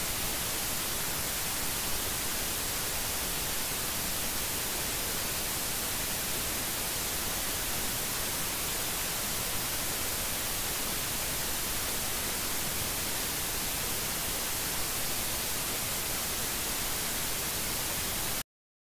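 Steady, even static hiss, bright and unchanging, with no other sound in it. It cuts off abruptly near the end.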